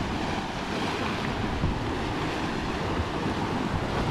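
Steady rush of sea water foaming along the hull of a sailing catamaran under way, with wind buffeting the microphone.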